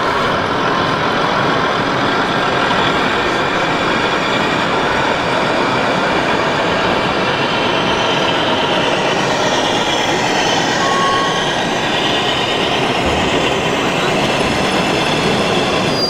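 Steady din of a large indoor hall: radio-controlled model trucks running amid the noise of a crowd.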